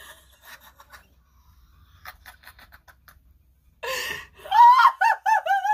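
A teenage boy laughing: quiet, breathy giggles at first, then a sharp gasping breath about four seconds in and loud, high-pitched laughter near the end.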